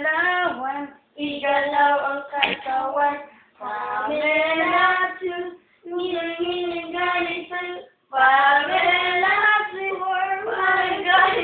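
A child's voice singing a tune unaccompanied, in held phrases broken by short pauses, with one sharp knock about two and a half seconds in.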